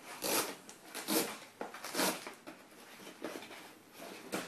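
A cardboard box and its straps being handled in a hard plastic carrying case: four or five short scraping, rustling sounds about a second apart as the box is freed and lifted.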